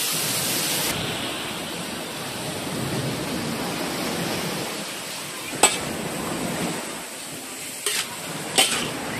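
Shredded green papaya sizzling in a hot wok with shrimp paste as it is stir-fried with a metal spatula. The sizzle is loudest at the start and drops after about a second, and the spatula clinks sharply against the wok three times in the second half.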